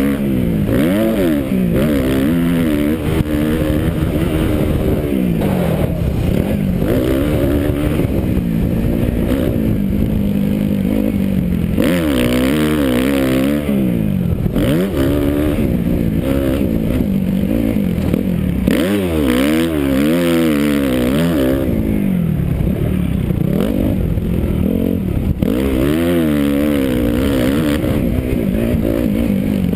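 Motocross dirt bike engine revving up and down as the rider accelerates, shifts and rolls off around a dirt track, the pitch rising and falling every second or two. Heard close up from a helmet camera.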